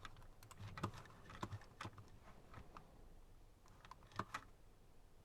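Faint, irregular keystrokes on a computer keyboard as a search is typed in, with a quick pair of clicks about four seconds in.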